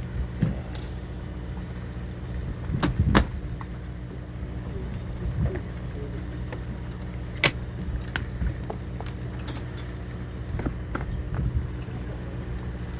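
Steady low drone of the fishing boat's engine running, with a few sharp clicks and knocks from gear on deck.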